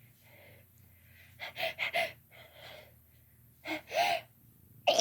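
A woman's sharp, catching gasps as she builds up to a sneeze: a quick cluster, a softer one, then two more, the last with a voiced rise in pitch. The sneeze breaks out right at the very end.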